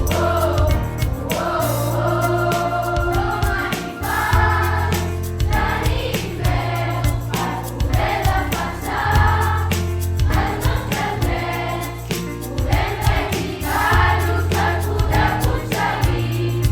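A song: a group of voices singing together over a backing track with a steady beat and heavy bass.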